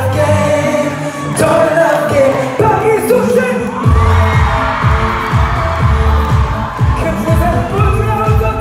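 Live pop music from a concert PA: a singer's voice over the backing track. About four seconds in, a heavy kick-drum beat comes in at about two beats a second.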